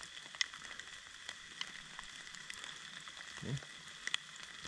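Light rain pattering: a steady hiss with scattered sharp drop ticks.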